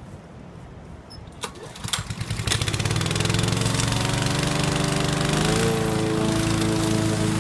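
Honda 21-inch self-propelled lawn mower's petrol engine being pull-started: a couple of clicks, a brief rattle of the starter rope, then the engine catches about two and a half seconds in and runs steadily, its pitch lifting a little just after halfway as it settles to speed.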